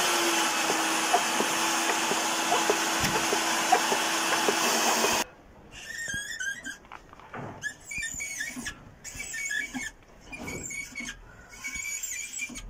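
Electric diamond core drill running with a steady hum and loud hiss, then cutting off suddenly about five seconds in. Afterwards there are faint, high, squeaky chirps.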